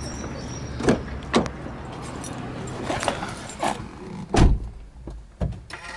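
Someone getting into a Subaru Impreza WRX STI hatchback, with a series of knocks and clicks. The driver's door shuts with a heavy thud about four and a half seconds in, the loudest sound here.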